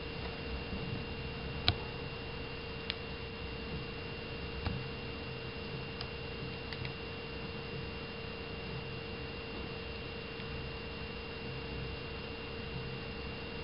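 Steady electrical hum with a thin high whine above it over a background hiss, broken by a few faint short clicks in the first seven seconds.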